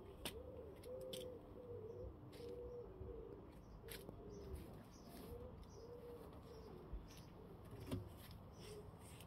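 A pigeon cooing faintly in repeated low, wavering phrases, with a few light clicks and taps, the loudest a knock about eight seconds in.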